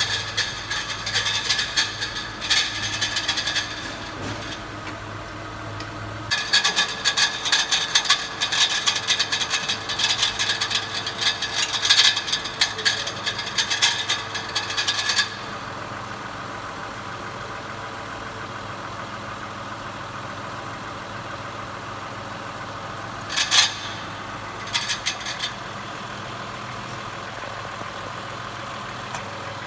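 Mitsubishi Pajero Sport engine running with a harsh metallic rattling and scraping from underneath that comes in long spells and then drops away, leaving a steadier run broken by two brief rattles near the end. It is the sound of a loose torque-converter-to-flywheel bolt being thrown around inside the bell housing by the spinning flywheel.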